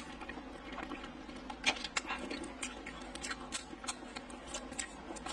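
Thin plastic film wrapper of a cheese stick being handled and peeled: scattered small crinkles and clicks at an uneven pace.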